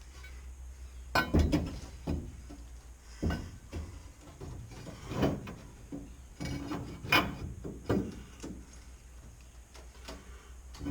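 Irregular knocks and clunks, about half a dozen spread out, over a low steady hum.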